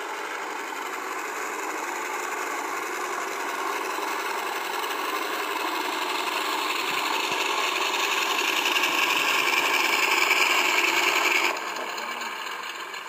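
Onboard sound system of an RC T-28 model airplane playing scale engine sound as the plane taxis, mixed with its propeller. It grows steadily louder as the plane comes closer, then drops sharply near the end.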